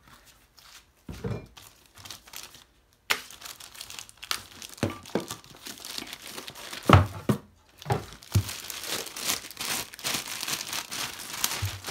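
Cardboard packaging being handled, with a sharp knock about seven seconds in, and a plastic bag crinkling as it is pulled off a tool case, densest over the last few seconds.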